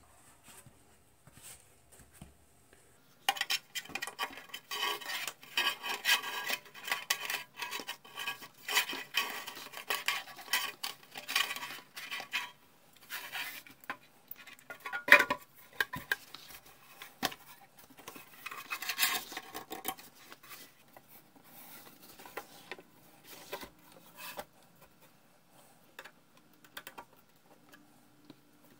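Sheet-metal cabinet of a Heathkit T-3 signal tracer being handled on a workbench during reassembly: a run of metallic clatters, scrapes and light knocks with brief ringing, starting a few seconds in. The loudest knock comes about halfway through, and the handling grows sparse and faint near the end.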